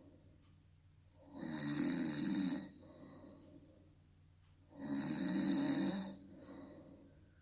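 A person snoring on purpose: two loud, rasping snores about three seconds apart, each lasting just over a second, with quiet breaths between.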